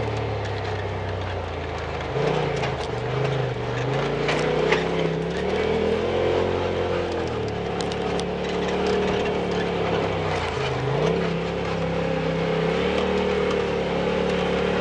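Off-road vehicle engine running under load, its pitch rising and falling again and again with the throttle, with a few sharp clicks and knocks along the way.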